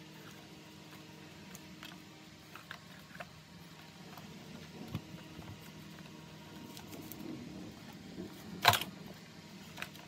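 Plastic clicks and knocks from a vacuum cleaner's cord-rewind reel being handled and fitted, with one sharp loud clack near the end and a steady low hum underneath.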